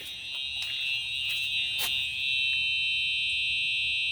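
Fire alarm horn, set off from a pull station, sounding a steady high-pitched tone heard from outside the garage. It grows louder about halfway through.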